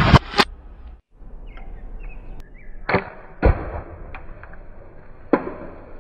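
Shots from a homemade PVC slingshot: sharp snapping cracks of the release and the projectile striking a small target. There is a pair of cracks at the start, another pair about three seconds in, and one more near the end.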